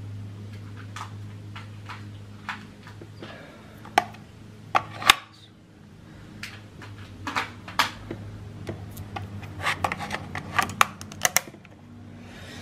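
AA batteries being pressed into the plastic battery tray of a Traxxas transmitter: a series of sharp clicks and small rattles of cells against the spring contacts and plastic, coming in clusters and busiest in the second half.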